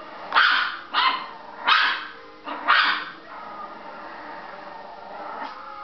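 A Chihuahua barking four times in about three seconds, with the television's film soundtrack going on quietly underneath.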